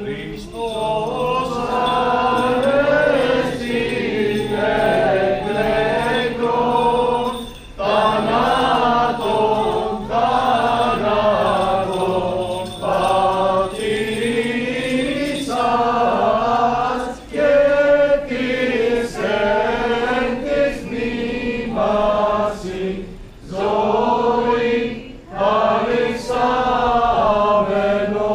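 Orthodox clergy and congregation chanting an Easter hymn together, several voices singing in phrases with short breaks between them.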